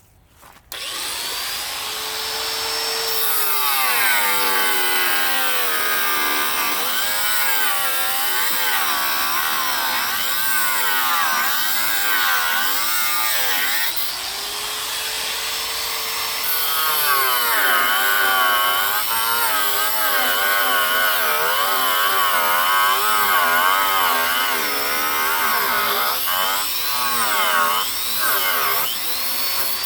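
Angle grinder starting up about a second in and cutting through metal. Its whine wavers up and down as the load on the disc changes.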